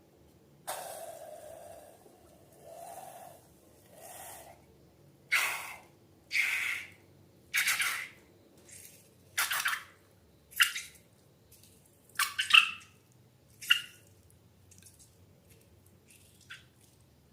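Slime being squeezed and worked by hand: a run of wet squelches about once a second, the first few longer and softer, the later ones sharper.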